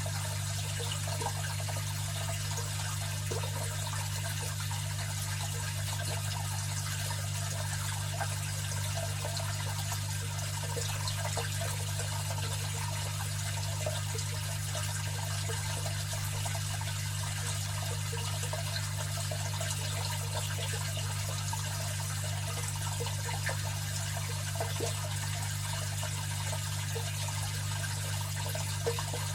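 Aquarium filter running: a steady trickle of water with small splashing flickers, over a low steady hum.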